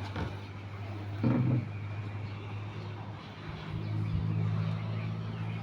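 An engine running steadily with a low hum, swelling slightly in the second half, and a brief louder sound about a second in.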